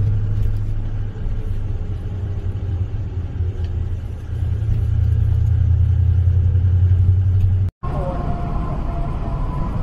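Steady low rumble of a car driving, heard from inside the cabin: engine and road noise. Near the end it cuts off abruptly, and a different sound with a few held tones follows.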